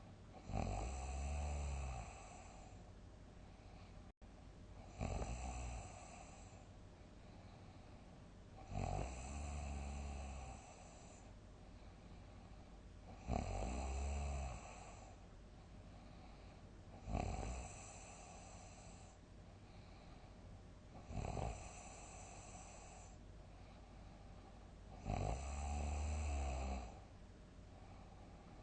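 Loud snoring in a steady rhythm: seven deep, rasping snores about four seconds apart, each lasting a second or so, with quieter breathing between them.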